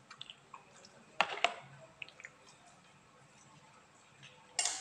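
Serving spoon clicking and scraping against a plastic bowl and plate as vegetable stew is dished up. There are a few light clicks, two sharper ones about a second in, then a short scrape near the end.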